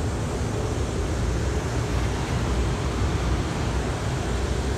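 Steady rushing noise with an uneven low rumble: wind buffeting an outdoor handheld microphone.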